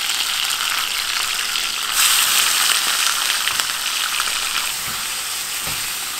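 Raw chicken pieces sizzling in hot groundnut oil in a stainless steel kadai, a steady frying hiss that gets louder about two seconds in.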